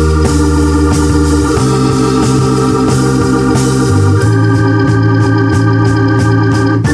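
Background music: sustained organ chords changing every second or two over a light steady beat.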